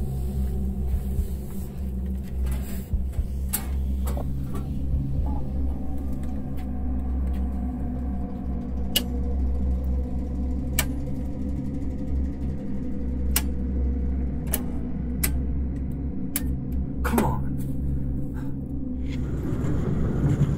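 Low, steady rumbling drone of an ambient horror score, with a series of sharp clicks in the second half, one every second or two, from circuit breakers being flipped in an electrical panel.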